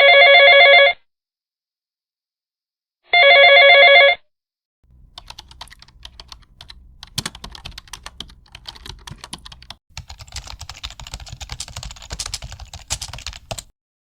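An electronic phone ringtone sounding twice, each ring about a second long, then a long run of rapid clicks and taps over a low hum, stopping shortly before the end.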